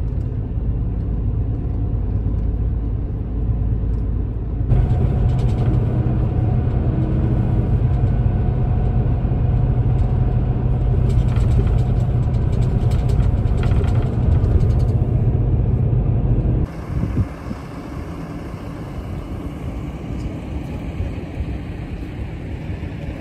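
JR highway coach cabin noise while under way: a steady low rumble of engine and road, louder from about five seconds in. It breaks off suddenly after about seventeen seconds to quieter outdoor ambience with some vehicle noise.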